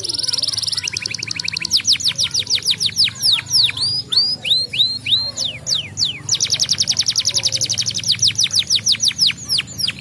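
Domestic canary singing: a fast trill, then a run of falling whistled notes that slow to about two a second around the middle, then another fast trill.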